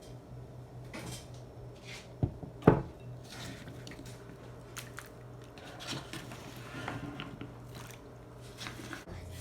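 Kitchen handling of a bowl and raw sweet potato wedges: two sharp knocks a little over two seconds in, then lighter clicks, clatter and rustling, over a low steady hum.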